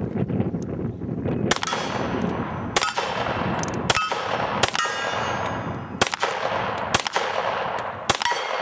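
A string of about seven gunshots fired at steel targets, spaced roughly a second apart. Each hit is followed by the metallic ring of the struck steel plate.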